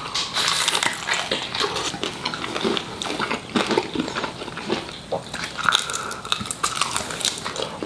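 Close-miked eating sounds of a man biting into and chewing chicken wings, a dense run of irregular mouth clicks and smacks.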